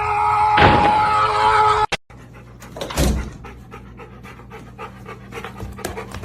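A loud held pitched sound that cuts off abruptly about two seconds in, followed by a single thud and then a dog panting.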